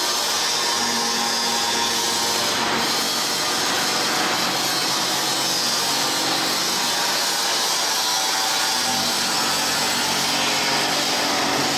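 Grinding head of a PNMD-1400 crusher-blade sharpening machine grinding a straight plastic-crusher knife wet, under a coolant spray: a steady, even grinding hiss with a low motor hum beneath it.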